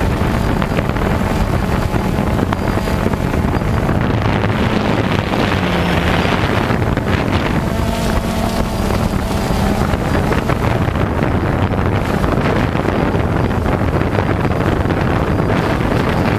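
Multirotor drone's electric motors and propellers heard from the camera it carries: a loud, steady whir with wind rushing over the microphone. The hum shifts in pitch a little in the middle as the drone comes down to land.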